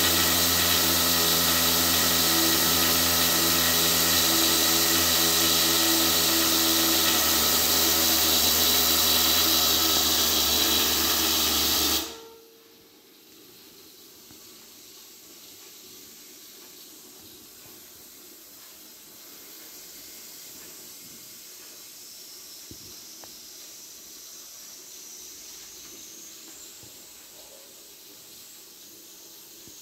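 Steam escaping from the lid of a Goley Plus vertical autoclave, a loud steady hiss with a low hum in it that cuts off abruptly about twelve seconds in, leaving only a faint hiss.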